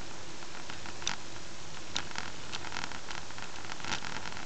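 Steady hiss of road and cabin noise inside a moving car, picked up by a dashcam, with a few sharp, irregular clicks.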